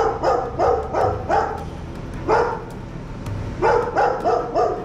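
A dog barking over and over: a quick run of about five barks, a single bark near the middle, then another run of about four near the end.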